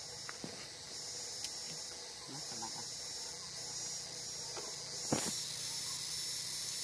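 Insect chorus: a steady high-pitched hiss that swells and fades in waves about a second apart, with a few light clicks and one sharp knock about five seconds in.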